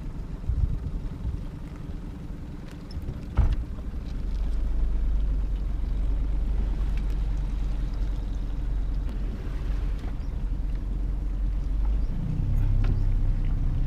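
Small boat's outboard motor running at low speed, with a single knock about three and a half seconds in. The engine gets louder about four seconds in, and its note steps up in pitch near the end.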